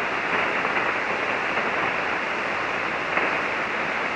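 Steady hiss of band noise from an amateur radio receiver tuned to 40-metre single sideband, with no station transmitting on the frequency.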